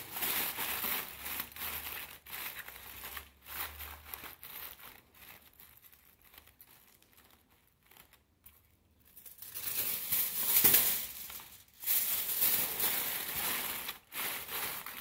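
Aluminium foil crinkling and crumpling as it is handled and pressed by hand around a cone-shaped form, in bursts. It dies down for a few seconds mid-way, then picks up again.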